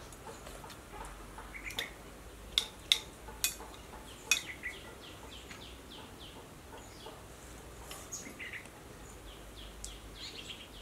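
Spoons clinking against plates and bowls, several sharp clinks between about two and four and a half seconds in. Birds chirp in the background, with a quick run of short falling chirps in the middle.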